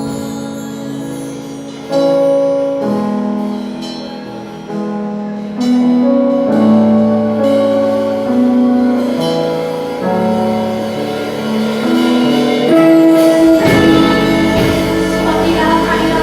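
Music played on keyboard or piano: held chords that change every couple of seconds, growing fuller and louder, with more bass, from about three-quarters of the way in.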